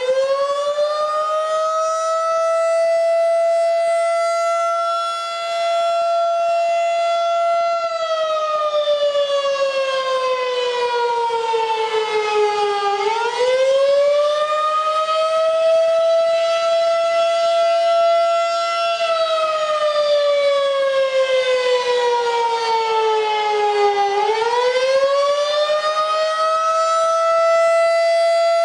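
Outdoor electromechanical tornado siren sounding a test wail. It holds a loud, steady tone, then twice falls slowly in pitch and winds back up again.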